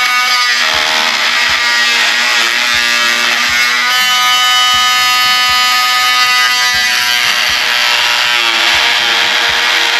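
Oscillating multi-tool buzzing as its blade cuts into a PVC T-fitting, with a steady whine whose pitch shifts now and then as the blade bears into the plastic.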